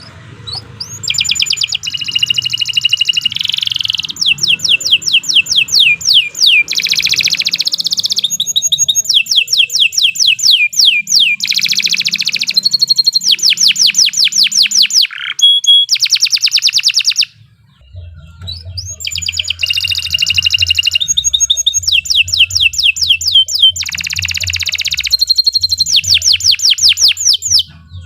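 Domestic canary singing a long, loud song of fast rolling trills: rapid runs of high notes that each sweep downward, changing from one tour to the next. The song breaks off briefly about two-thirds of the way through, then starts again.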